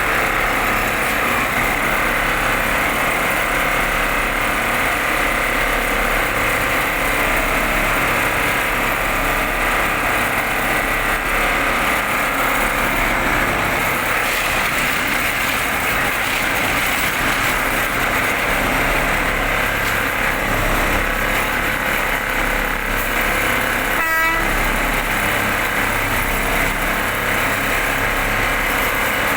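Industrial machine running steadily, a dense mechanical din with a faint steady whine. A short sharp high-pitched squeal or beep cuts in once, about five seconds before the end.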